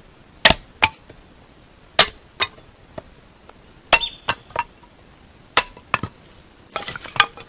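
Sharp knocks of small kindling being split by striking, coming in groups of two or three about every one and a half to two seconds. Some knocks have a short metallic ring.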